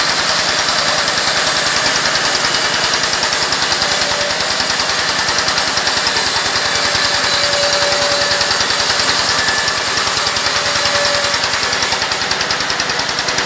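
Stationary engine driving a wood band saw, running steadily at a constant speed with a fast, even knocking beat.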